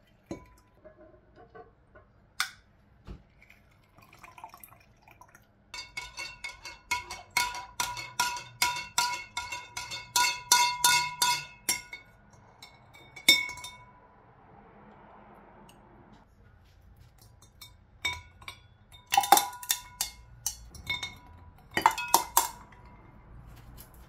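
A long metal spoon stirring tea in a tall glass carafe, clinking against the glass in a quick, even run of ringing strikes for about six seconds. Later come short clusters of clinks as ice cubes are dropped into the carafe.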